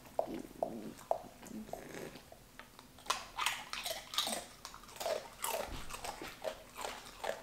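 A dog chewing and licking food from a person's hand: a run of quick, irregular mouth clicks, thickest in the second half.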